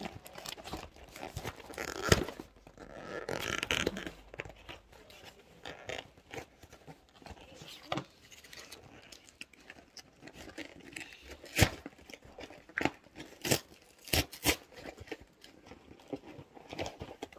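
Keyboard packaging being handled: plastic and cardboard crinkling and rustling, broken by sharp knocks and taps. A loud knock about two seconds in is followed by a second or two of crinkling, and a string of sharp knocks comes in the second half.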